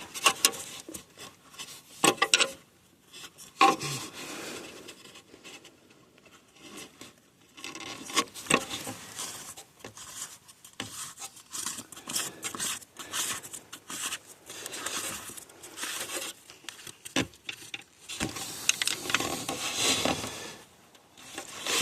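Hands working on a diesel fuel filter housing: irregular clicks, scrapes and rubbing as the filter and its cap are handled and fitted back in place.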